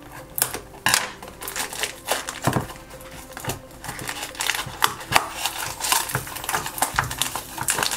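Scissors cutting into a small cardboard blind box, then the box pulled and torn open by hand: a run of short snips, clicks, scrapes and crinkles.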